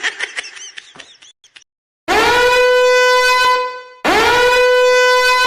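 A horn sound effect gives two long blasts at one steady pitch, each swooping up into the note at its start. Before them come quick chirpy sounds that fade out over the first second and a half.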